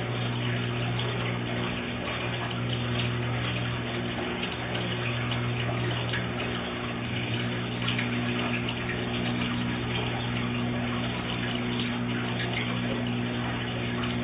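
Large saltwater aquarium's water circulation running: a steady rush and splash of water where the return flow enters at the surface, over a steady low pump hum.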